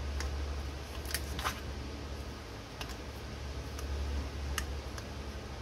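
Handling of a paper sticker sheet: a few faint, scattered clicks and taps as fingers move over the paper, over a steady low hum.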